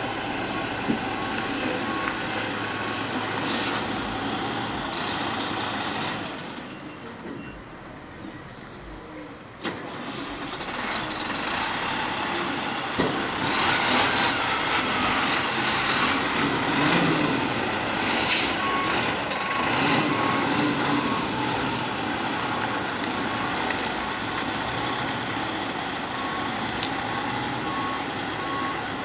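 Diesel tractor-trailer truck running while it manoeuvres a shipping container, with a reversing alarm beeping in a steady, even rhythm at the start and again near the end. The engine dips quieter for a few seconds, then runs louder from about halfway through.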